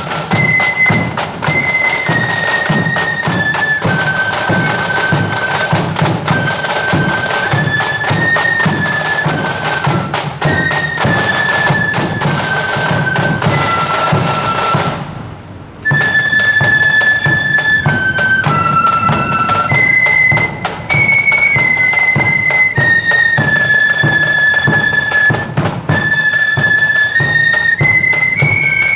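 A marching flute band plays a tune on high-pitched flutes, with drums beating steady time beneath. The music breaks off for under a second about halfway through, then the flutes start again.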